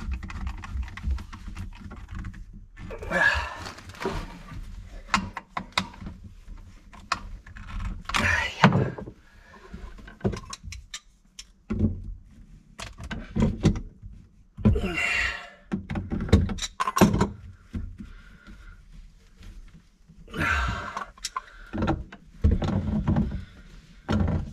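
Irregular clunks, taps and scrapes of hands and pliers working on PVC sink drain pipes and their plastic slip nuts, with short bursts of rubbing noise.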